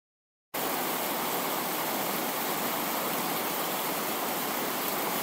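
Steady hiss of static noise, even and unchanging, that cuts in suddenly about half a second in after dead silence.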